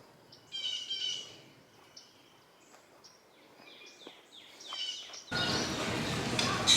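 Birds chirping over a quiet background: one flurry of high calls about half a second in, then another from about three and a half to five seconds. A little after five seconds it cuts abruptly to loud, steady noise.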